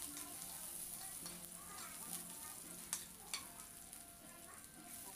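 Ground chicken sizzling in hot oil in a pan as it is sautéed and stirred with a spatula. Two sharp clicks come about three seconds in.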